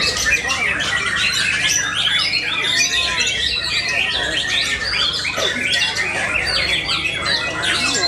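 Several white-rumped shamas (murai batu) singing at once: a dense, unbroken tangle of loud whistles, trills and harsh chattering calls.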